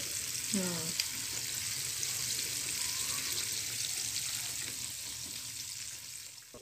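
Batter-coated banana pieces deep-frying in hot oil: a steady crackling sizzle that fades away near the end.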